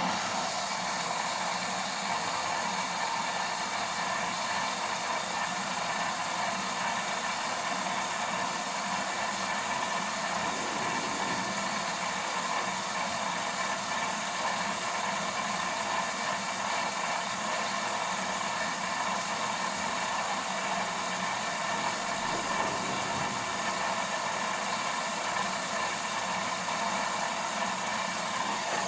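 LG washing machine running with a steady hum and hiss, several constant tones held over an even rushing noise.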